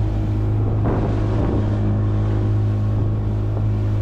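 Outboard motor of a small open boat running at a steady pitch while under way, with water rushing along the hull.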